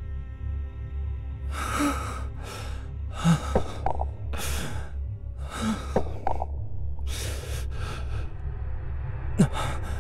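A man sobbing: about eight ragged, gasping breaths, some with a short voiced catch, over a low droning music bed.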